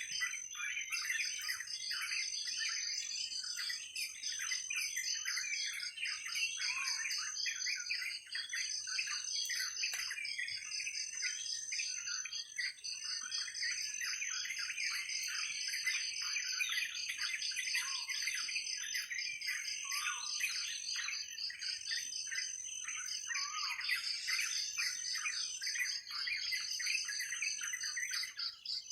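Dense chorus of many birds chirping and calling over one another, over a steady high-pitched insect trilling.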